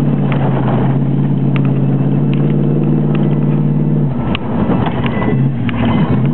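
1973 Plymouth Satellite's engine, heard from inside the cabin, running hard at a steady pitch as the car is driven across a field. About four seconds in, the even engine tone breaks off into a rougher, unsteady sound. Scattered sharp clicks run throughout.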